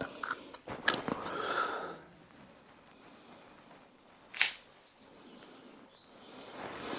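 Small handling noises while working on a plumbing fitting: a couple of clicks and a short rustle, then one brief sharp tick about four and a half seconds in.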